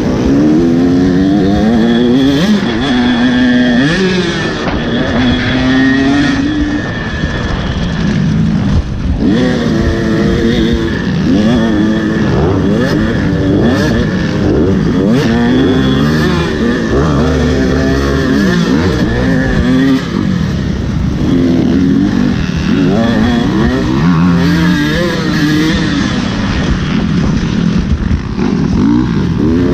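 Motocross dirt bike engine revving up and down over and over, its pitch climbing and dropping every second or two.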